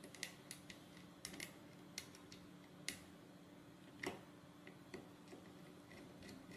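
Faint, irregular small clicks and taps of a screwdriver and small bolts against a metal ball caster wheel as it is being bolted onto a robot car chassis, the sharpest ticks about three and four seconds in. A low steady hum underneath.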